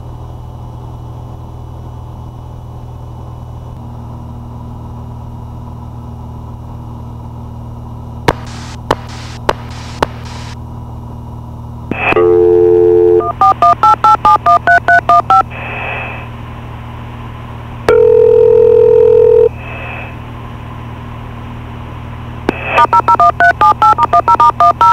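A dial-up remote communications outlet (DRCO) connects over the aircraft radio into the headsets. The mic key is clicked four times, then come a dial tone, a quick string of touch-tone digits, a longer steady tone, and another run of touch-tone digits near the end. Under it all is the steady drone of the Cessna 172's engine in cruise.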